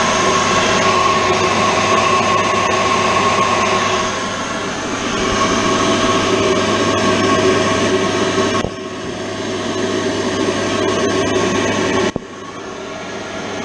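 Combustion blower of a gas boiler running steadily during an ignition attempt, a whirring hum with a few steady tones, stepping down in level twice near the end. The boiler is failing to light and going to ignition-error lockout.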